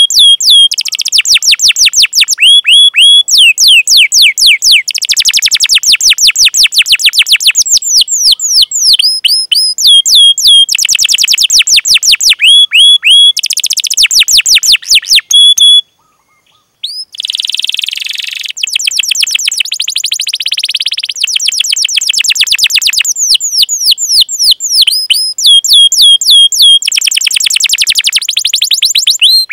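Domestic canary singing a fast, loud song: repeated downward-sweeping whistled notes alternating with rapid rolling trills. After a short break about halfway through, a harsher, buzzier trill comes in, and then the sweeping notes return.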